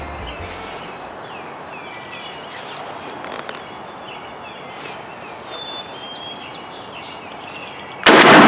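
Songbirds chirping and trilling at dawn. About eight seconds in comes a single loud shotgun blast, the turkey hunter firing a load of TSS #9 tungsten shot.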